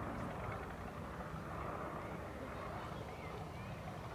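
Faint, steady drone of two Westland Lysanders' Bristol Mercury radial engines flying in formation, with faint voices underneath.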